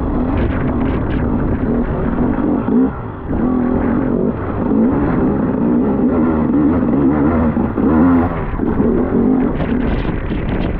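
Enduro motorcycle engine running as the bike is ridden, its pitch rising and falling with the throttle, with a brief drop in revs about three seconds in.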